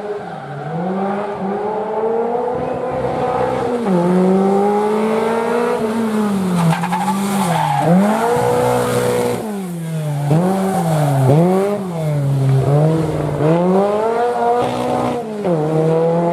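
Rally car engine revving hard, its pitch climbing and dropping over and over as the driver works the throttle and gears, about a dozen rises in quick succession.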